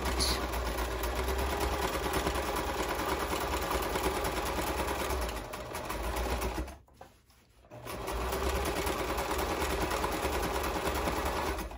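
Sewing machine stitching through fabric at a steady speed. It stops for about a second around the middle, then runs again and stops near the end.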